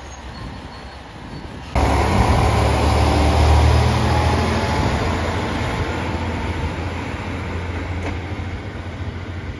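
JR Shikoku 1000 series diesel railcar: a low rumble at first. About two seconds in, its diesel engine's deep running sound and rail noise come in suddenly and loud, then fade gradually as the railcar pulls away.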